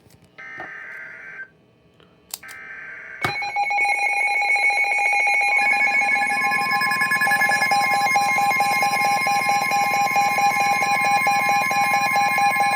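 Emergency Alert System tones: short digital data bursts about a second apart, then from about three seconds in a loud, rapidly pulsing two-tone attention signal, joined about five and a half seconds in by a steady single alert tone. Together they announce an incoming weather warning.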